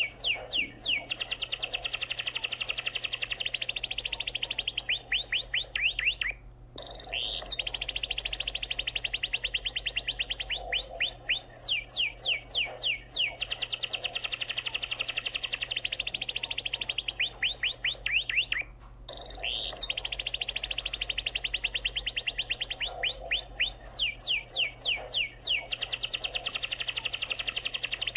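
Background soundtrack of rapid, high chirping trills that repeats in a loop, breaking off briefly twice.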